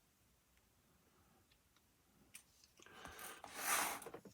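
Faint handling noises from small parts and tools on a workbench: a few light clicks, then a brief rustle near the end.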